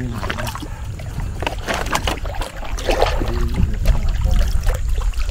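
Water splashing and lapping around a small boat moving on still swamp water, over a steady low rumble, with louder splashes about two and three seconds in.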